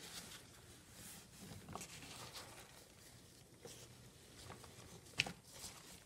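Faint rustling and crinkling as a gloved hand spreads shredded damp cardboard bedding through a worm bin, with one sharper crackle about five seconds in.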